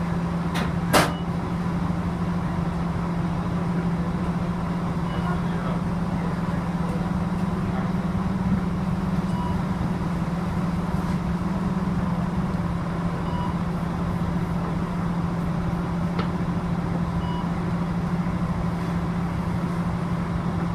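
Steady low hum of a city bus idling while it stands still, heard from inside the cabin. Two sharp clicks about a second in, and faint short beeps every few seconds.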